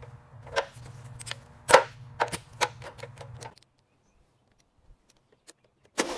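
A series of sharp clicks and knocks, about seven in the first three and a half seconds, over a low steady hum; the sound then cuts off to near silence, and one more sharp click comes near the end.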